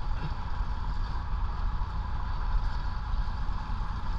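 Boat engine running: a steady low rumble with a faint constant whine above it.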